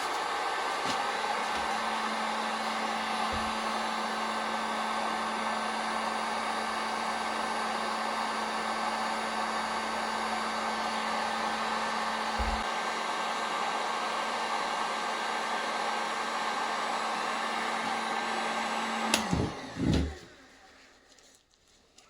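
An electric power tool's motor running steadily, switched off about 19 seconds in, then two short knocks.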